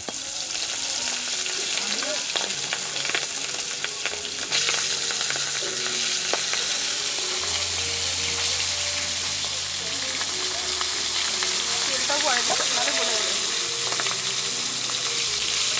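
Fish pieces frying in hot oil in an aluminium wok, a steady sizzle that grows louder about four and a half seconds in. A metal spatula scrapes and turns the pieces in the pan.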